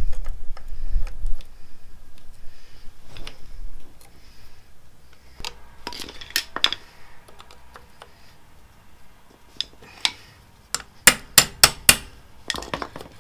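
Metal parts of a motorcycle foot peg clicking and clinking as they are worked together by hand, with scattered sharp clicks and a quick run of about six clinks about two-thirds of the way through.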